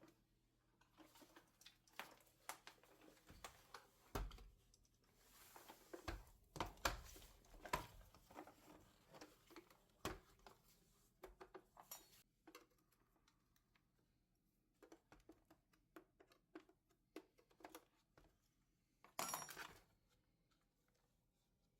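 Faint, scattered clicks and knocks of hard plastic vacuum-cleaner parts being handled, with a short rustling clatter near the end.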